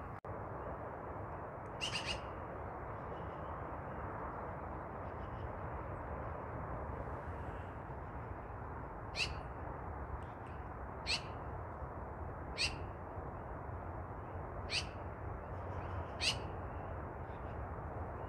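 A bird calling: one call about two seconds in, then five short, sharp, down-slurred calls at intervals of about one and a half to two seconds, over a steady rushing background noise.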